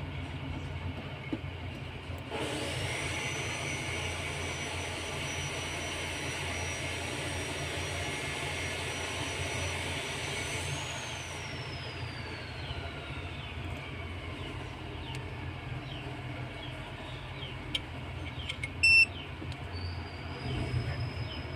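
Hot air rework station's blower starts about two seconds in with a high steady whine over a rush of air, then winds down with a falling whine from about halfway. Near the end a short electronic beep sounds and the blower whine starts again, over a low steady hum.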